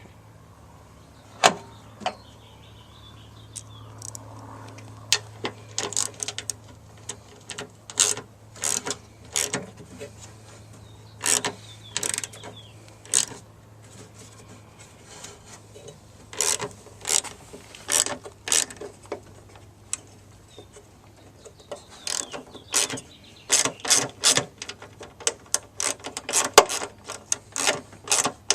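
Hand ratchet wrench clicking in short runs as its handle is swung back and forth, with a faster, steadier run of clicks near the end. A faint low hum lies underneath for the first half.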